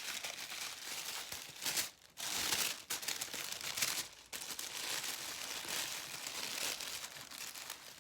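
Tissue paper and packaging crinkling and rustling as items are unwrapped from a subscription box. The rustle is continuous and irregular, with brief pauses about two and four seconds in.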